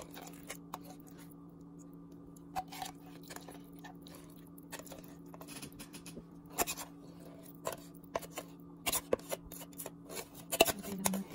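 A metal spoon scooping thick pumpkin puree into a glass bowl, with scattered scrapes, soft wet plops and light clinks against the container, coming more often and louder in the second half. A steady low hum runs underneath.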